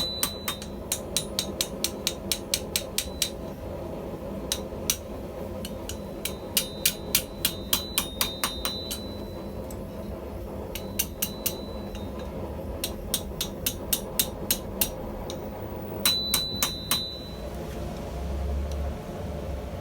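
Hand hammer striking steel on an anvil in quick bursts of about four blows a second with short pauses between, the anvil ringing with a high tone after some blows. The hammering stops near the end and a low steady rumble comes up.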